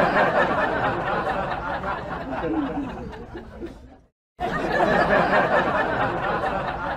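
Laugh track: a crowd of people laughing together. It cuts out abruptly for a moment about four seconds in, then starts again.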